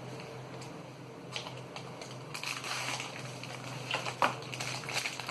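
Hands handling the phone's accessory packaging: rustling from about two seconds in, with a few sharp clicks, the loudest a bit past four seconds. A steady low hum runs underneath.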